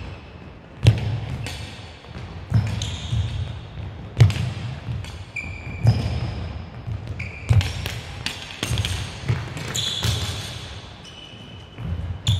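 Badminton players' shoes landing hard on a sports hall court floor as they lunge and recover: repeated heavy footfall thuds about once a second, mixed with short, high shoe squeaks.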